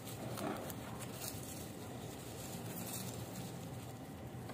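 Faint rustling of Aglaonema leaves and stems being handled, with a few light clicks.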